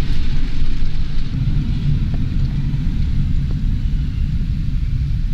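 A moving car heard from inside the cabin: a steady low rumble of engine and tyre noise.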